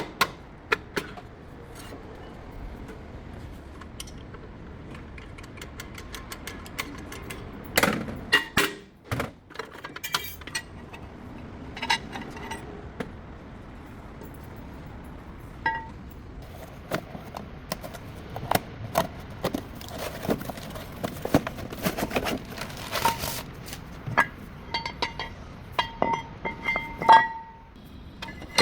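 Metal tools and parts being handled: scattered clinks and knocks, with a few short ringing metallic taps near the end.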